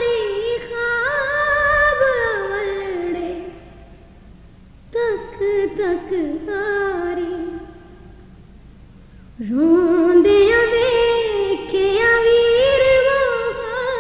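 A woman singing a noha, a mournful Muharram lament, solo, in long ornamented phrases with two short pauses between lines.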